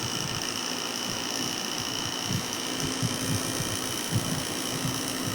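Inverter air conditioner under test after a PCB repair, its compressor and fan motor running: a steady mechanical hum with a constant high whine.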